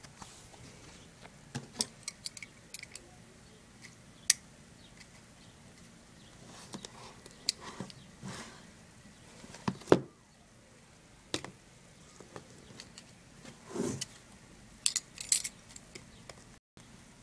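Packaging of a DVD box set being handled and opened by hand: scattered sharp clicks and taps with a few short rustles and swishes, irregular and spread through the stretch.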